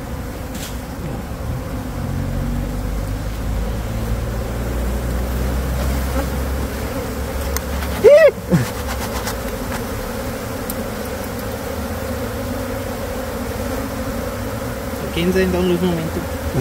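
Swarm of honey bees buzzing around an open hive box and the opened wall cavity, a steady hum. About halfway through comes a brief, louder buzz that rises and then falls in pitch.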